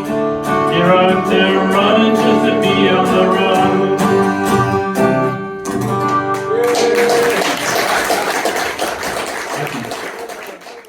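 Acoustic guitar playing the closing bars of a folk song, ending on a held chord. About seven seconds in, audience applause takes over, fading out at the end.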